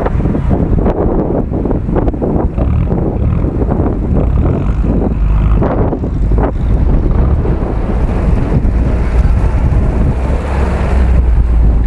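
Wind buffeting the camera microphone in loud, irregular gusts, over the low running of off-road vehicle engines.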